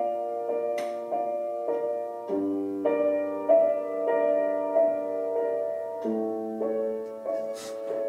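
Background piano music: an even run of struck notes, about one every half second or so, over slowly changing chords.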